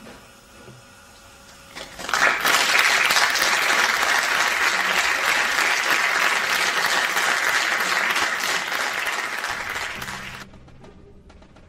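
Audience applauding: clapping begins about two seconds in, holds steady for about eight seconds, then cuts off suddenly.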